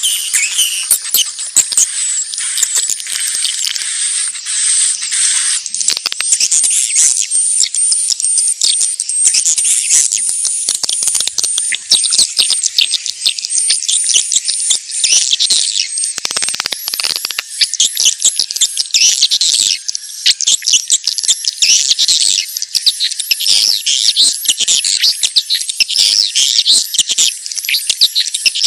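Swiftlets calling: a dense, continuous chatter of rapid, high-pitched chirps and twitters, the walet courtship call.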